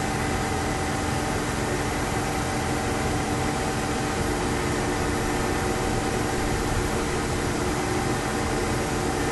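Tractor engine idling steadily: a constant, even hum that does not rise or fall.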